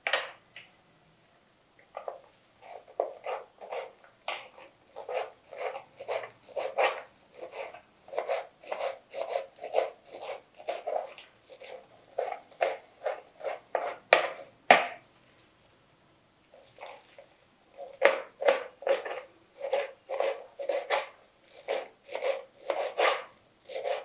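Knife chopping fresh spinach leaves on a plastic chopping board: a steady run of quick cuts with two brief pauses and one louder knock about halfway through.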